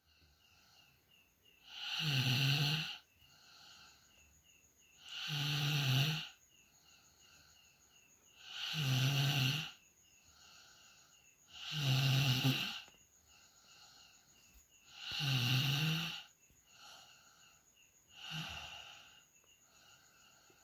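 A person snoring loudly in deep sleep: five loud snores about every three and a half seconds, each lasting about a second, with quieter breaths between them and a weaker sixth snore near the end.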